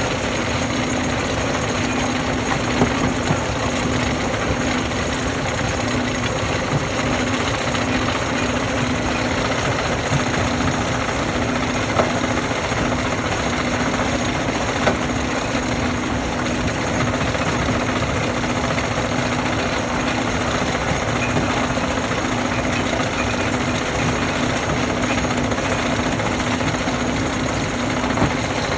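Stone-crushing machinery running steadily under load, a dense rattling din over a low hum, with a few sharp cracks of rock standing out now and then.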